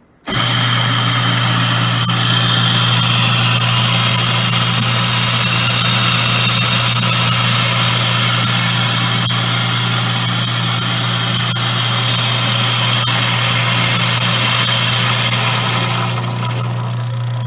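Grindmaster 890 series commercial coffee grinder starting at the push of its start button and grinding whole coffee beans: a steady motor hum under a dense grinding noise from the burrs. Near the end the grinding noise thins out while the motor hum carries on.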